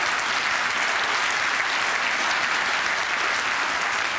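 Theatre audience applauding, a steady dense clapping.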